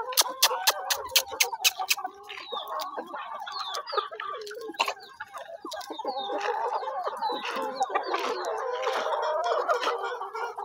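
A flock of chickens, hens and roosters, clucking, many birds at once, the clucking growing louder about six seconds in. A fast run of sharp clicks sounds in the first two seconds.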